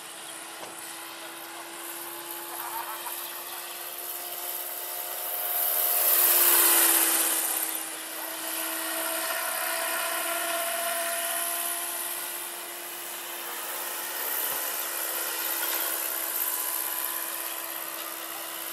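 Electric scale model NH-90 helicopter in flight: a steady electric-motor and gearbox whine over the rushing whoosh of its 1.85 m main rotor. It swells to its loudest about six to seven seconds in as the model passes closest, then eases off.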